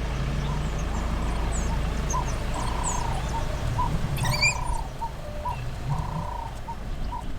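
Birds calling: a run of repeated short and drawn-out notes near one pitch, with quick high chirps and a brief twittering phrase about four seconds in, over a steady low engine hum.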